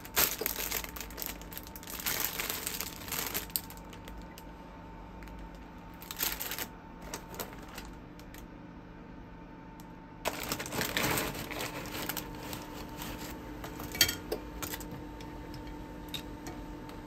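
Irregular rustling and crinkling in several bursts, with scattered light clicks and clinks, the sharpest about fourteen seconds in, over a faint steady hum.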